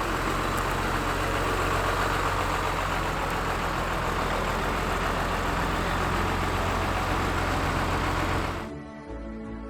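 A construction machine's engine running steadily with a low hum, cutting off abruptly near the end as music begins.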